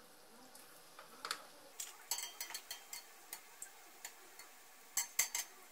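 Perforated steel skimmer clicking and tapping against a steel kadai while koftas are turned in hot oil: a run of sharp clicks, loudest in a quick cluster near the end, over a faint frying sizzle.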